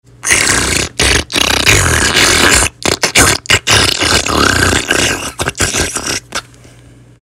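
Loud, harsh drinking sound effect: a noisy gulping, slurping rush broken by many short gaps, stopping a little after six seconds in.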